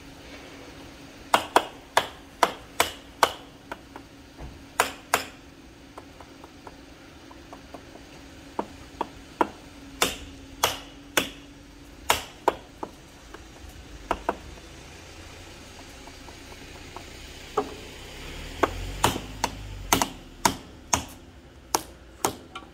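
Mallet blows on a Mitsubishi HF-SP502 AC servo motor being knocked apart for repair after an oil-contamination failure. Sharp knocks come in short runs of several quick strikes with pauses between, over a steady low hum.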